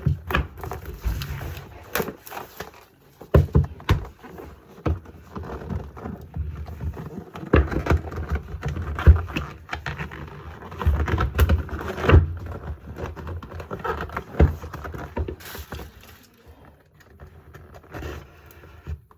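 A box and its packaging being opened and handled by hand: irregular knocks, clicks and rustling.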